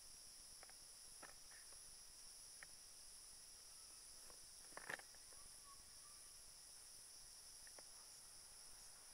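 Faint steady high-pitched insect chorus, in two even buzzing layers, with a few light scattered clicks and one sharper click about five seconds in.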